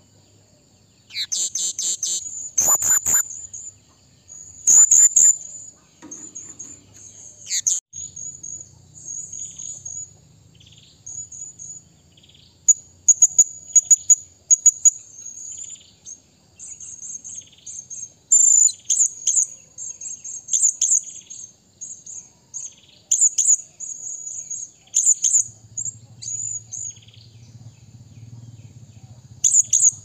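Blue-crowned hanging parrot (serindit) calling: shrill, very high-pitched chirps in quick runs, with a few sharper, louder notes among them.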